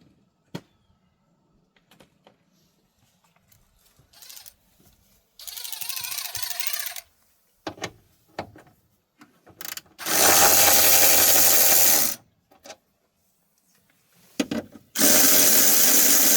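A cordless power tool run in three bursts while loosening bolts: a shorter, quieter run about five seconds in, then two loud runs of about two seconds each, with small clicks and knocks of handling between them.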